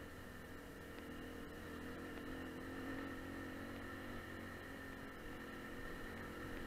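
AKT 250 adventure motorcycle's engine running steadily while riding over a stony dirt track, a little louder around the middle.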